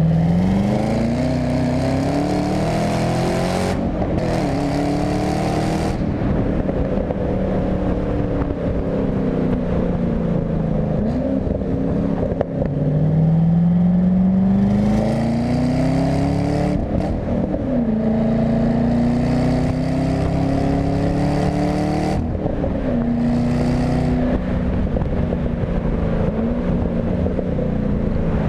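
2015 Chevrolet Camaro ZL1's supercharged 6.2-litre V8 accelerating hard through the gears, the engine note climbing in pitch and dropping at each upshift, several times over.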